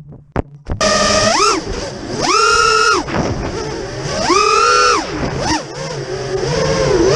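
Brushless motors of an FPV racing quadcopter, Emax RS2205 2600kv with 5045 propellers, whining. The pitch rises, holds and drops again several times with throttle punches. A few sharp crackles come before the motors spool up about a second in.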